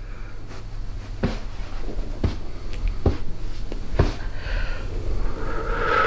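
A series of sharp clicks or knocks, about one a second, five in all, over a low steady hum. A faint drawn-out breath or moan rises near the end.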